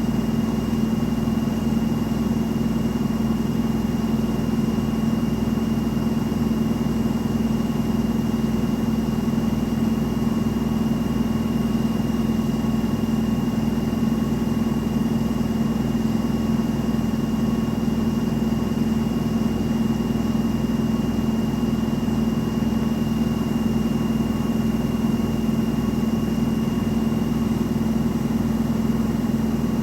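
Front-loading washing machine in its spin cycle at a steady high speed: a constant low drone with a thin high whine over it, holding the same pitch throughout.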